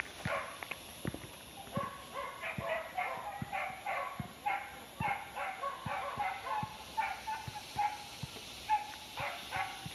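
Dog barking repeatedly in a quick, uneven string of short barks.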